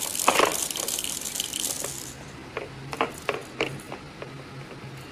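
Water running from a tap with a bright hiss, shut off about two seconds in. Then a few light clicks and clinks of a feeding spoon and a plastic toy.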